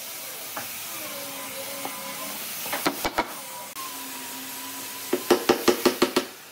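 Wooden dowels being driven into drilled holes in a pine bench rail with a mallet: three knocks about three seconds in, then a quick run of about seven sharper knocks near the end. A steady hiss lies underneath.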